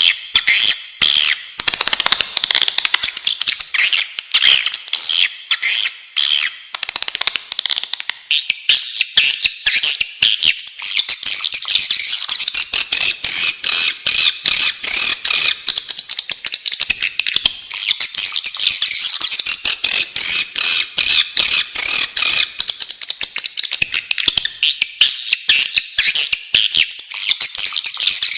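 Many swiftlets twittering together: a dense, unbroken stream of rapid, high chirps and clicks. This is a swiftlet lure call, the sound played to draw swiftlets into a nesting house.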